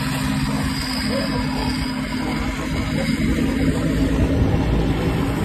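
Motorcycle running at road speed, with wind rushing over the microphone.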